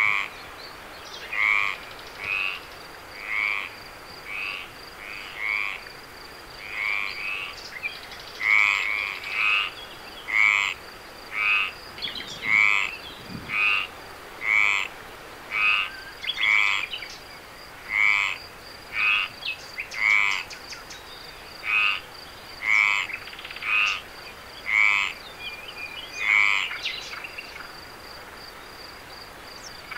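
Frogs croaking at night: a steady series of short, loud croaks about once a second that stop a few seconds before the end.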